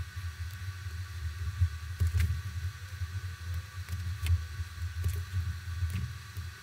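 Tweezers and the thin metal shield clips on a Nokia N93 main board clicking and scraping as they are worked, a handful of small sharp clicks over a low background hum.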